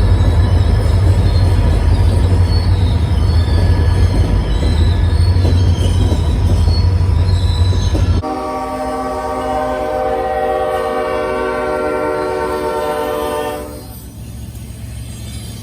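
A freight train rumbling past with faint high wheel squeal. About eight seconds in, the sound changes abruptly to a locomotive air horn holding a steady multi-note chord for about five seconds, then fading.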